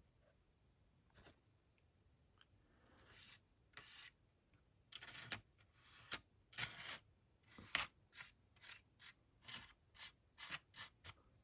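Paintbrush strokes on a corrugated foil model fence, brushing on acrylic paint: faint, short scratchy strokes, sparse at first, then about two a second through the second half.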